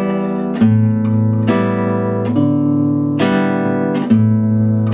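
Flight C-120N nylon-string classical guitar fingerpicked in a slow two-stroke pattern: a bass note, then three treble strings plucked together, about one pluck a second, each ringing on.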